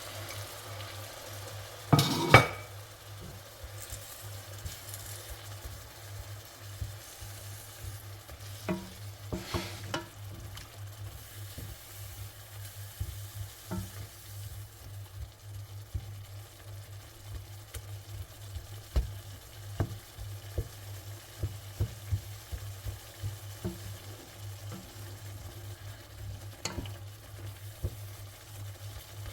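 Tomato sauce with chicken stock sizzling in a pan while a spoon stirs it, with scattered clicks and knocks of the spoon against the pan, the loudest about two seconds in. A steady low hum runs underneath.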